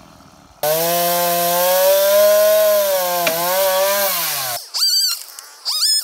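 Stihl two-stroke chainsaw throttled up at high revs while cutting up a fallen tree. It starts abruptly about half a second in, its pitch sagging slightly under load, and cuts off about 4.5 seconds in. Two short, high chirps that slide up and down follow near the end.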